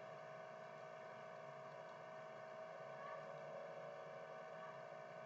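Faint steady hum with a light hiss, unchanging throughout: background room tone with no other sound.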